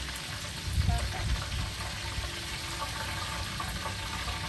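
Hot deep-frying oil in a wok bubbling and sizzling as fried scotch eggs are lifted out, with a low rumble of wind on the microphone about a second in.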